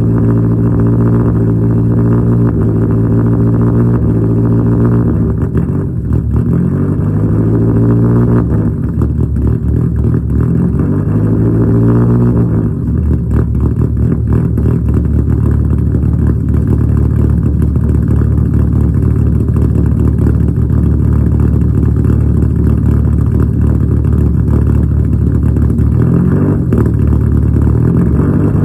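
Straight-piped exhaust of a Nissan S13 Silvia's naturally aspirated 2.2-litre four-cylinder with individual throttle bodies, running at idle during warm-up. The engine speed rises and falls a few times, about five seconds in, again between about eight and twelve seconds, and near the end.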